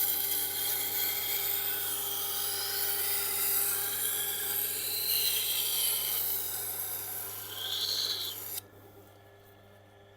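Knife steel being ground against a slowly turning Tormek SG-250 grindstone: a steady, high-pitched rasping hiss that stops abruptly about eight and a half seconds in as the blade is lifted off. The machine's motor hums steadily underneath.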